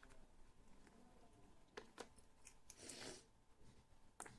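Near silence, broken by a few light clicks and one brief soft rustle as paint tubes and packaging are handled.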